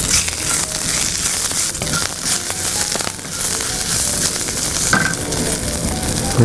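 Curry leaves and drumstick (moringa) leaves sizzling in hot oil in a metal kadai, stirred with a wooden spatula. The sizzle is a steady hiss with small crackles.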